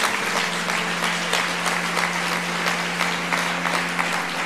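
Audience applauding: dense, steady clapping from many hands, with a low held tone faintly beneath it.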